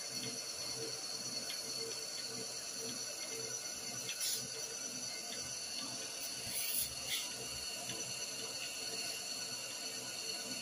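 Water running steadily over a machine's hum, with a couple of brief knocks about four and seven seconds in.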